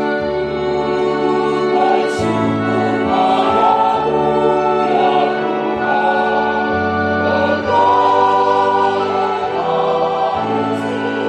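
Church choir singing a hymn over sustained chords played on an electronic keyboard; the voices come in about two seconds in.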